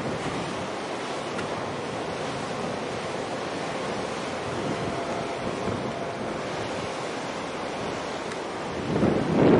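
Wind buffeting the microphone over the rush of open harbour water, a steady noisy wash. A louder surge of noise comes just before the end.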